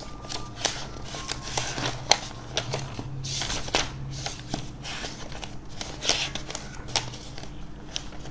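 Pages of a paperback textbook being flipped forward and back: dry paper rustling with many quick sharp flicks as the sheets turn.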